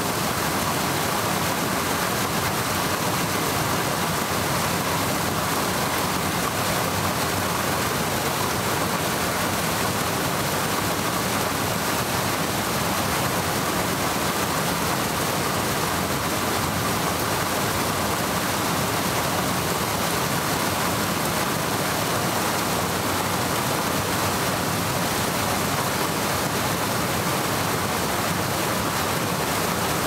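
Water spilling over a low concrete weir in a culvert and splashing into the stream below: a steady rush that does not change.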